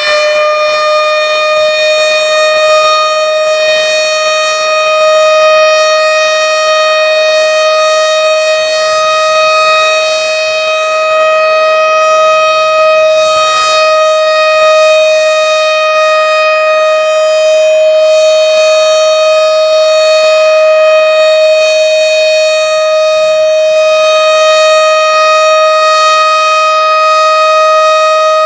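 Outdoor tornado warning siren sounding one long, steady wail, its pitch settling just after winding up at the start.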